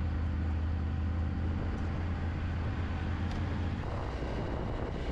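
BMW motorcycle engine running steadily at low speed on a gravel track. Its note changes slightly about four seconds in.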